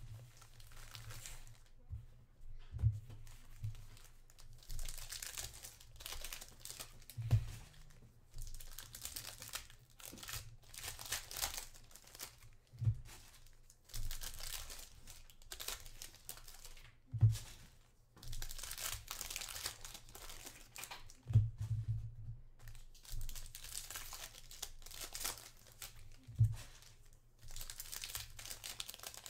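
Foil trading-card packs being torn open and their wrappers crinkled, with cards handled in between. A dull thump every four to five seconds, the loudest sound, as packs or card stacks are set down on the table.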